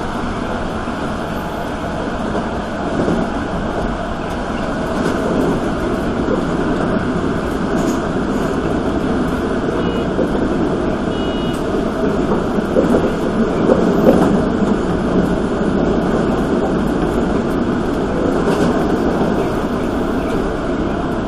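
Toei 5300 series electric train running on the line, a steady rumble of wheels on rail heard from inside the front car. Two short high beeps come about ten and eleven seconds in.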